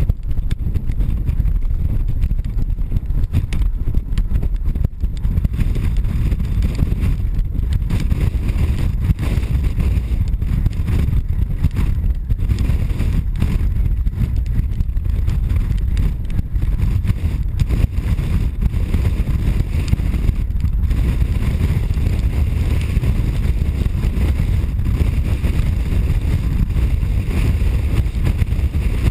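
Steady low rumble of wind and road noise from a moving vehicle, with no separate events standing out.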